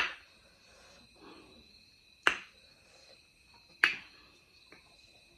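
Three sharp clicks from eating: at the very start, a little past two seconds, and near four seconds. Behind them, crickets chirr steadily.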